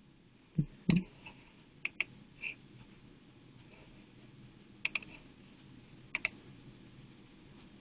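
Computer mouse clicks: a handful of short, sharp clicks, mostly in quick pairs, with a couple of duller knocks near the start.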